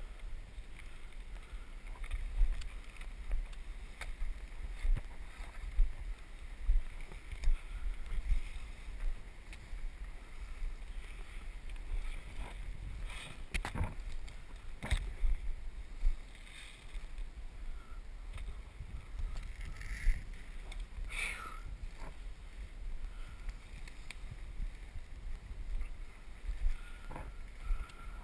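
Footsteps of a person walking slowly through leafy forest undergrowth, with plants swishing against legs and gear and dull thumps of the steps. There are a few sharp snaps, a cluster about halfway through and another about three quarters in.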